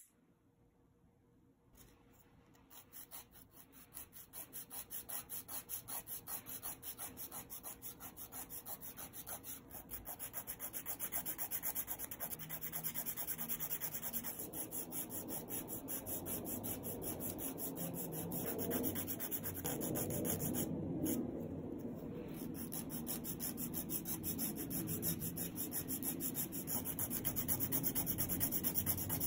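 Emery nail file rasping in quick, even back-and-forth strokes across the edge of a clear artificial nail tip, shaping the extended tip. The filing starts about two seconds in.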